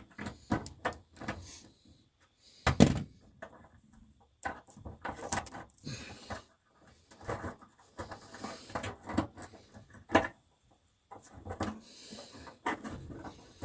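Irregular knocks, clicks and clunks of hands and tools working on a bathroom wall heater during its installation, the loudest knocks about three seconds and ten seconds in.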